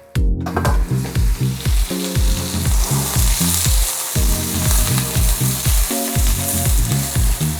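Mushrooms and onions sizzling as they fry in a hot pan, a steady hiss, with background music carrying a rhythmic bass line.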